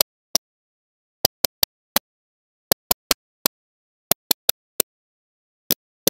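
Magnetic balls clicking together as they are snapped on one at a time: sharp single clicks in quick runs of three or four, with silence between.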